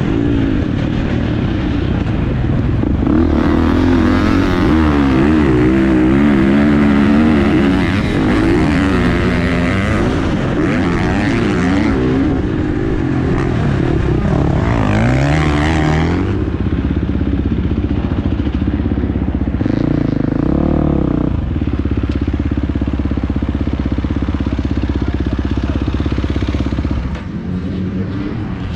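Husqvarna dirt bike engine heard from the rider's onboard camera, revving up and down repeatedly as it is ridden round the motocross track. For the second half it holds a steadier, lower note, then drops off near the end as the bike slows.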